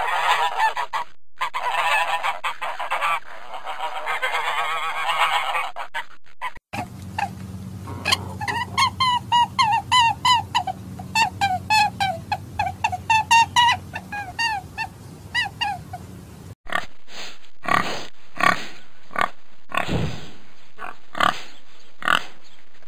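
Domestic geese honking together in a dense, overlapping chorus. After about seven seconds this gives way to a quick run of short high calls, about three a second. From about seventeen seconds pigs grunt in short separate grunts.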